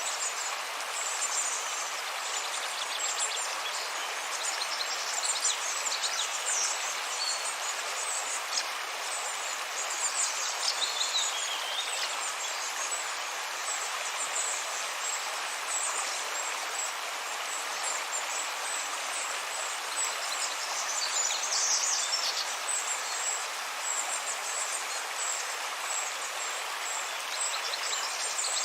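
River water flowing with a steady rush, and birds chirping high above it, including a falling whistled call about eleven seconds in.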